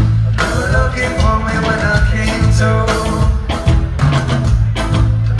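Live rock band playing a song through the venue's PA: electric guitar, keyboard and drum kit over a steady beat.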